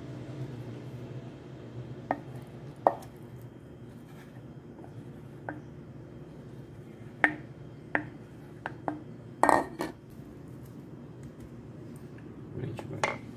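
Wooden spatula knocking and scraping against a metal mixing bowl as soft butter is scraped out, in scattered sharp knocks with a tight cluster of them about nine and a half seconds in, over a low steady hum.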